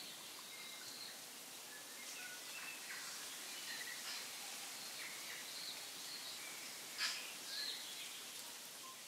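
Faint steady background hiss with scattered brief high chirps and a single sharp click about seven seconds in.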